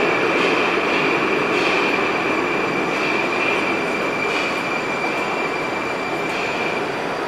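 Metrowagonmash 81-765.4 "Moscow-2019" metro train standing at a platform: a steady noisy hum with a high, steady whine that fades out near the end.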